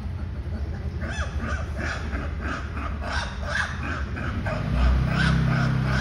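A rapid series of short harsh animal calls, about two to three a second, starting about a second in. A low steady hum joins near the end.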